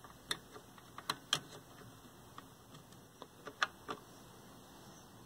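Small, irregular plastic clicks and taps as wire-harness connectors are pushed onto the circuit boards inside a 1970s Sony Trinitron KV-1942R TV chassis. There are about eight, mostly in the first four seconds.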